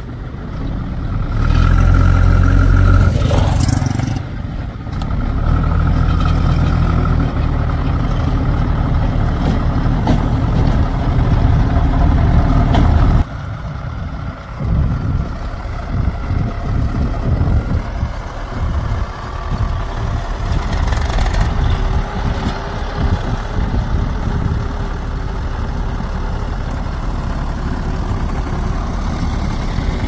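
Heavy diesel engines of a backhoe loader and tractors running, loud and steady for about the first thirteen seconds, then cutting off abruptly to a quieter, more uneven engine sound.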